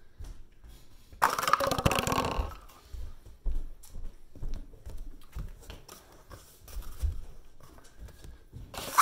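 Cardboard toilet-paper and paper-towel tubes knocked over by a bowled sock, clattering and rolling on a hardwood floor for about a second, followed by scattered light thumps and knocks as the tubes are reset by hand.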